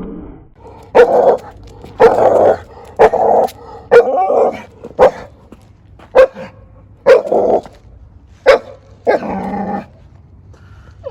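A dog barking repeatedly, about ten loud barks roughly one a second, the last one drawn out.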